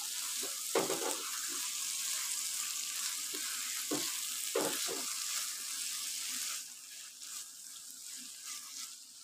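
Whole moong dal cooking in masala, sizzling in a pan as it is stirred with a spatula, with a few scrapes and knocks of the spatula against the pan. The sizzle drops away about two-thirds of the way through.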